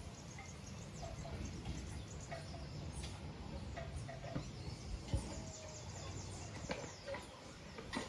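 Wind rumbling across the microphone and through the trees, with scattered bird chirps and short calls throughout. A single sharp knock about five seconds in.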